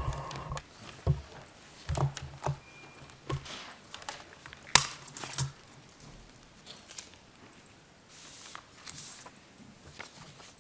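Scattered knocks, taps and clicks from people handling desk equipment and headsets, picked up by the desk microphones, with the sharpest click about five seconds in. It is quieter over the last few seconds.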